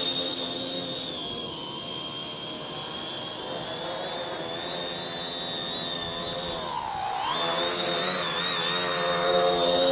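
HK X900 tricopter's electric motors and propellers whining steadily, the pitch dipping about seven seconds in as the throttle eases, then climbing back up and getting louder near the end.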